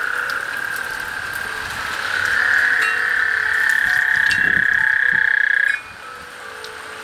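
A dense chorus of frogs calling in the rain, a steady high trill that swells about two seconds in and then stops abruptly near the end, over the hiss of heavy rain.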